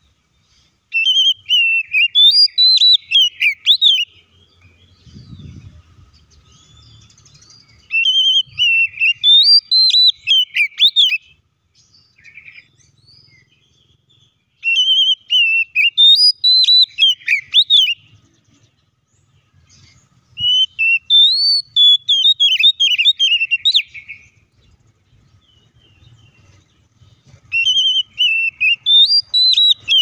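Oriental magpie-robin (kacer) singing: five phrases of quick, varied whistled notes, each about three seconds long, coming every six or seven seconds.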